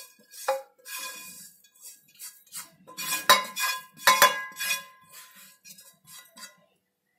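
A spatula scraping crisp, dried grated green mango across a non-stick tawa and tipping it into a bowl: dry rattling scrapes with sharp metallic clinks, the loudest about three and four seconds in. The dry rattle shows the shreds have dried out fully.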